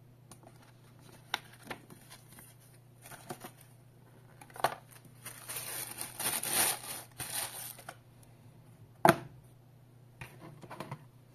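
Packaging being handled on a desk: a clear plastic bag crinkling for about three seconds in the middle, with scattered clicks and taps of a cardboard box before and after. A single sharp knock about nine seconds in is the loudest sound.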